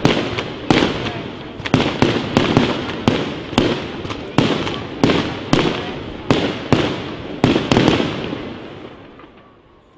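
Fireworks display: aerial shells bursting in quick succession, about two sharp bangs a second, each echoing away. The bangs stop about eight seconds in and the last echo fades out.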